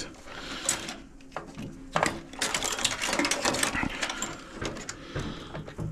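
Hand tools cutting and pulling wires and connectors inside a scrap microwave: irregular clicks and a rattling, scraping stretch of metal handling about two seconds in.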